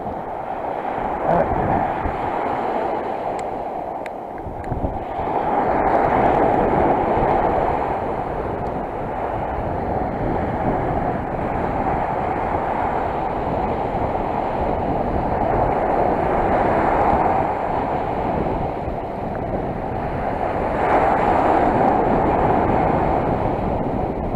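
Surf of the Sea of Okhotsk washing on the shore, swelling and easing every few seconds, with wind on the microphone.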